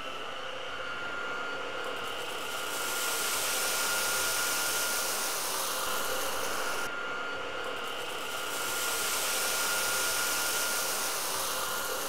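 Miele Triflex HX1 cordless stick vacuum running on its lowest suction setting while it is pushed back and forth over rice on low-pile carpet. A steady motor whine sits under a rushing air hiss that swells twice and eases off between the swells.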